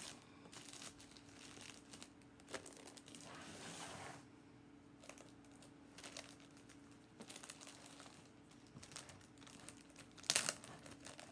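Clear plastic sheeting crinkling and rustling under the hands in irregular bursts as it is pressed and smoothed around a bowl, loudest about ten seconds in.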